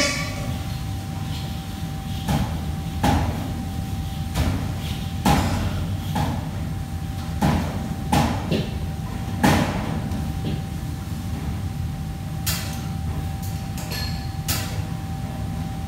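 Irregular knocks and clatters of kitchen work, about a dozen spread unevenly through, the loudest about five and nine seconds in. Under them runs a steady low machine hum with a faint steady whine.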